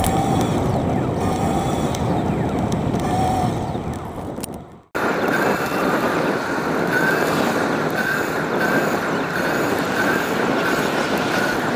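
Wind rushing over the microphone of a camera riding along a roadside bike lane, mixed with tyre and road rumble and passing traffic. About five seconds in, the sound fades and cuts out for an instant, then comes straight back. A faint steady whine runs under the noise.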